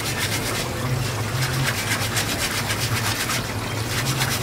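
Water from a hose running and splashing onto a cutting board as it is wiped with a sponge, over a steady low hum.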